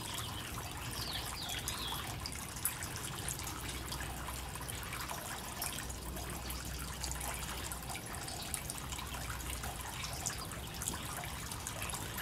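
Small garden fountain's water trickling and dripping steadily off the rim of its flower-shaped basin.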